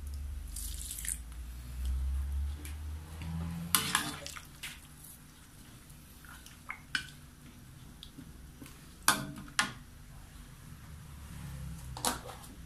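Steel ladle stirring curry in a metal wok, knocking and scraping against the pan: a few sharp metal clinks, a pair about four seconds in, two more about nine seconds in, and one near the end.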